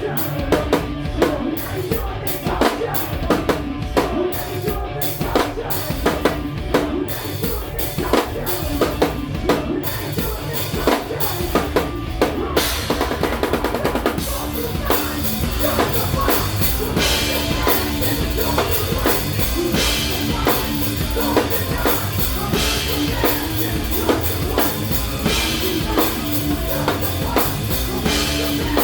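Live rock band playing with a heavy drum kit: bass drum and snare drive a steady beat, and the sound fills out with cymbals and sustained guitar and bass notes from about twelve seconds in.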